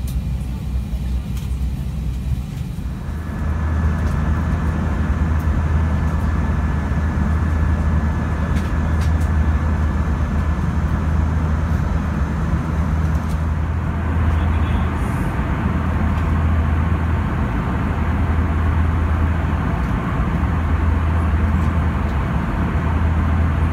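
Steady cabin noise inside an Airbus A320 airliner in flight: a low rumble of engines and airflow under a broad hiss, stepping up in level about three seconds in, with a thin steady whine over it for several seconds after that.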